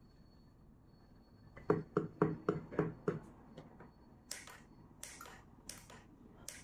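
A quick run of about six clicks from a wireless remote control's buttons being pressed, followed by a few fainter, sharper clicks.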